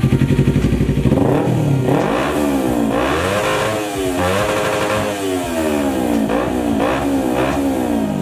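Kawasaki Ninja 250 parallel-twin engine through a LeoVince carbon slip-on exhaust, idling briefly and then revved in a series of quick throttle blips, the pitch rising and falling with each one.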